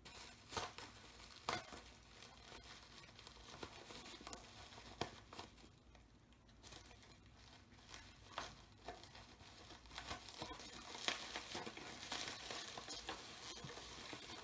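Plastic packaging crinkling and rustling as a boxed toy is unpacked by hand, with scattered sharp clicks and taps; the handling gets busier in the second half.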